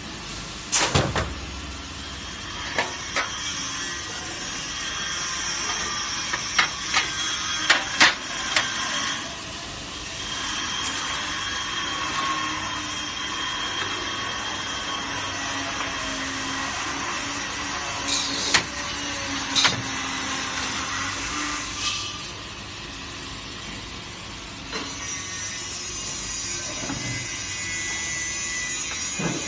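Sharp metal clanks as aluminium ladder rails are handled in the steel clamps of a ladder drilling machine, several in the first few seconds and two more later on, over a steady machine hum and hiss with a faint high whine.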